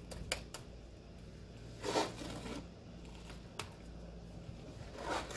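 Steel trowel scraping and scooping wet mortar: a few light clicks, then two short scrapes, about two and five seconds in.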